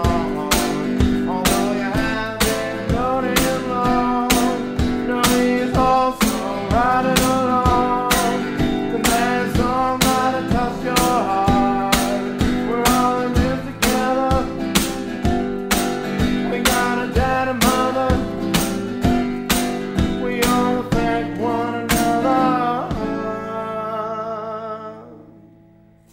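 Acoustic guitar strummed in a steady rhythm, about two strokes a second, with a man singing over it. Near the end the strumming stops and the last chord rings out and fades away.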